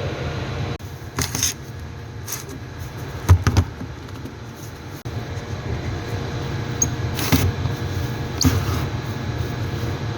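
Hand work on the fuel pump and filter assembly: several short knocks and clicks, a close pair about a third of the way in, over a steady low hum.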